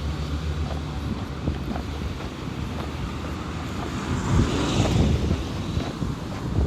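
Road traffic with wind buffeting the microphone: a low engine hum at first, then a vehicle passing close about four to five seconds in.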